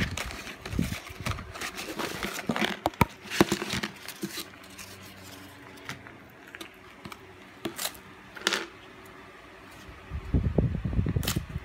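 Small plastic miniature toys being handled on a tabletop: scattered light clicks, taps and rustling, with a few duller bumps near the end.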